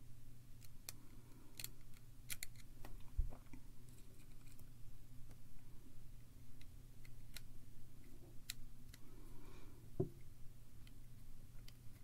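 Small irregular clicks and light scrapes of an iPod Mini's parts being handled and pressed into its aluminium housing, with a soft knock about three seconds in and another near the end. A faint steady low hum runs underneath.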